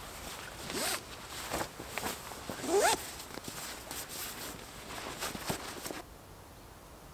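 Backpack zippers pulled open in short zips, with rustling and knocks of gear as packs and a sit pad are handled. The handling stops abruptly about six seconds in, leaving a faint steady hiss.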